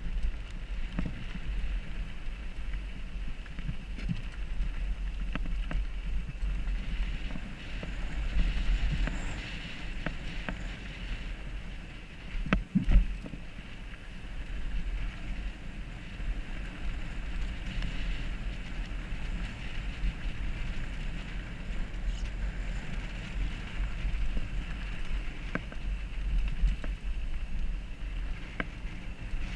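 Mountain bike ride heard through a helmet-mounted camera: steady wind rumble on the microphone with tyre and frame rattle from the trail. A sharp knock comes about thirteen seconds in.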